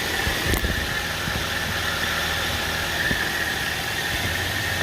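Toyota Avanza four-cylinder engine idling steadily in the engine bay, with a steady high whine over the running.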